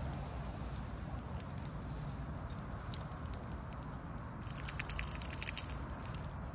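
Metallic jingling, as of keys or small metal tags shaken together, for about a second and a half near the end, over a steady low background noise.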